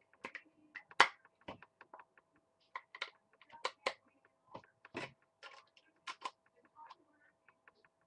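Irregular plastic clicks and taps from handling a Flip Ultra camcorder. The loudest is a sharp click about a second in.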